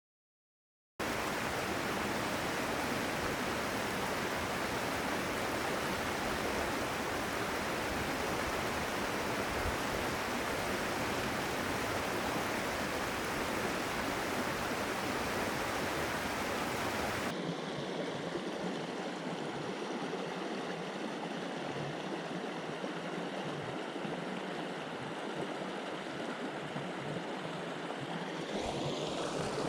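Water of a small creek running over rocks, a steady rushing. It begins after about a second of silence, then changes abruptly about 17 seconds in and loses most of its deep low end.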